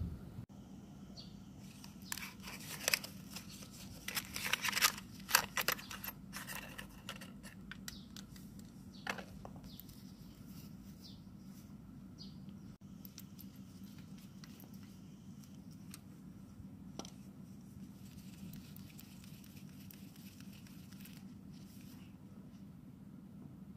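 Crinkling and tearing of packaging as a new spark plug is unwrapped, in a cluster of bursts a couple of seconds in, then a few faint clicks of small metal parts being handled. A faint steady low hum lies underneath.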